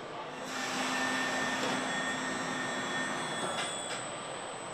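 Car assembly-line machinery running: a steady hiss with several faint whining tones, starting about half a second in and easing off toward the end, with a couple of light clicks near the end.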